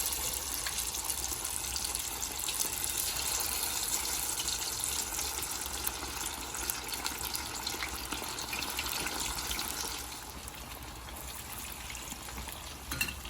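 Marinated chicken wings sizzling steadily in hot vegetable oil, a dense hiss that shows the oil is at proper frying heat. The sizzle eases a little about ten seconds in.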